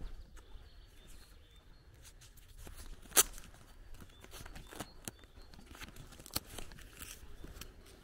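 Footsteps through grass and weeds, with scattered crunches and one sharp click about three seconds in, the loudest sound.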